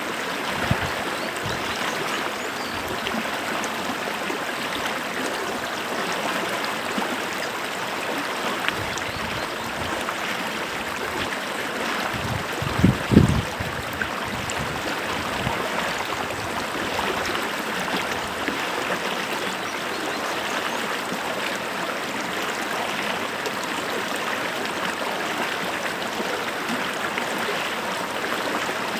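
Stream water running steadily with a continuous rushing and babbling. About halfway through, a brief low thump lasting about a second is the loudest sound.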